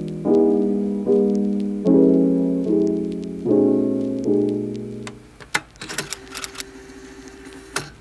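Piano music, soft chords struck about every second, each dying away. About five seconds in, the music stops and a quick run of sharp clicks follows, like the keys of a mechanical keyboard being typed on.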